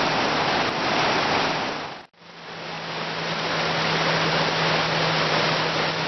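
Water rushing over a river barrage: a loud, steady wash of white water around wading anglers. It drops out briefly about two seconds in, and after that a low steady hum runs underneath.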